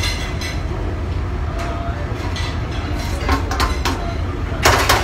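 Busy commercial galley kitchen: a steady low rumble underneath, with dishes and metal pans clattering a few times, loudest near the end.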